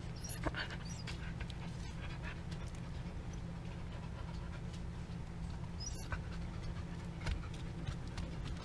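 A husky panting steadily, with rustling of blankets as she moves around.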